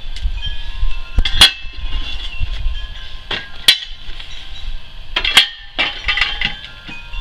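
Irregular metallic clinks and knocks, each ringing briefly, over a low rumble.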